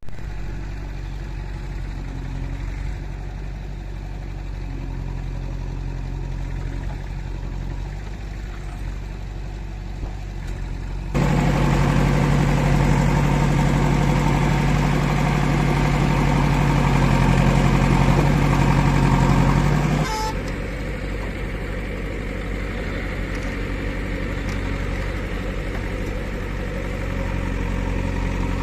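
Diesel engine of a JCB 3DX backhoe loader running steadily, with a sudden, much louder stretch of about nine seconds in the middle.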